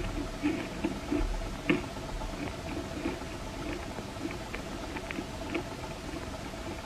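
Ice dusted with matcha powder being chewed, with irregular small crunches and crackles and one sharper crack about a second and a half in.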